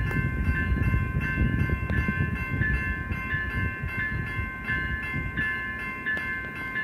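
Electronic railroad crossing bells ringing in a fast, even rhythm of about three strikes a second, the warning that the crossing is activated and a train is near. A low rumble runs beneath the bells.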